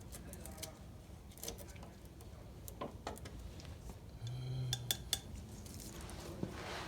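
Scattered light metallic clicks and clinks of hand tools and small metal parts being handled, with a brief low hum about four seconds in.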